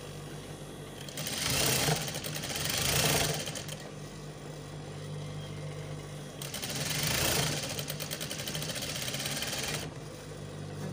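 Industrial sewing machine stitching crinoline onto fabric and lining in two runs: one from about one to three and a half seconds in, and one from about six to ten seconds in. A steady motor hum runs between and under the runs.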